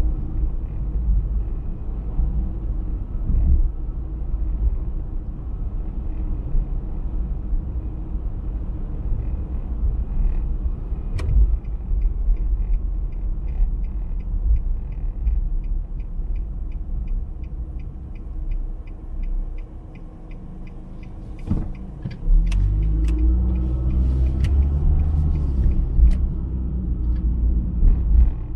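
Engine and road rumble heard inside a moving car. A regular ticking runs through the middle stretch. The sound dips, then a louder engine note rises as the car accelerates near the end.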